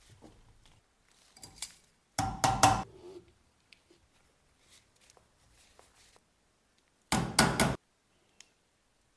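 Metal parts and tools knocking and clanking while an electric power steering rack is being assembled: a quick cluster of knocks a little over two seconds in and another about seven seconds in, with light clicks and ticks between.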